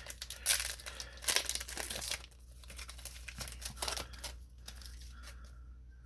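Foil wrapper of a Yu-Gi-Oh Maximum Gold booster pack crinkling and tearing as it is opened by hand, loudest for the first two seconds, then fainter rustling and light clicks as the cards are handled.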